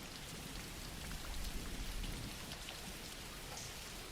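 Steady soft rain: an even hiss with scattered faint drop ticks, and a slightly louder low rumble about a second in.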